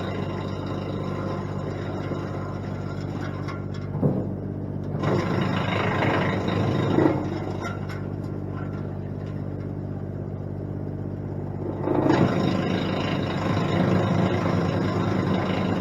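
Wood chipper's engine running steadily, with louder stretches of chipping noise as limbs are fed through: briefly about four seconds in, again around six to seven seconds, and a longer stretch from about twelve seconds on.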